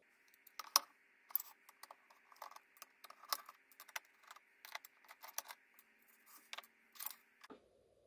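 Irregular small metal clicks and taps as a screwdriver works the screws out of an aluminium 2.5-inch drive bracket holding an SSD, the parts tapping on the wooden bench.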